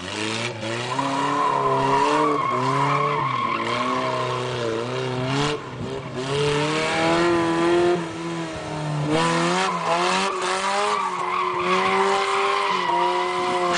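Mitsubishi Lancer's 4G33 four-cylinder engine, on a Weber carburettor with an open exhaust, revving up and down while the rear tyres squeal and skid through doughnuts.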